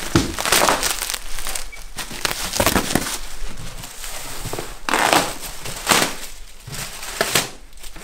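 Packaging being crumpled and pulled off a new paddleboard during unboxing: irregular crinkling and crackling rushes that come and go every second or two.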